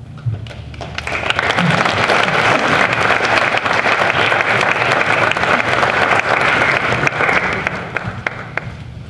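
Audience applauding after a speaker is introduced. The clapping swells about a second in, holds steady, and dies away near the end.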